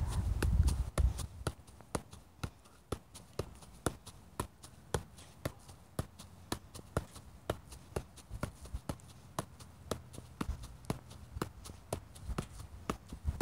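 A soccer ball being juggled, with a steady run of soft taps about two a second as foot or knee keeps it up without a drop.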